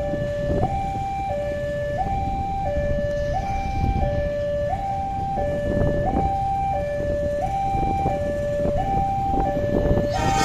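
Railway level-crossing warning alarm sounding while the crossing is closed for an approaching train: an electronic two-tone signal alternating steadily between a lower and a higher note, each held about two-thirds of a second.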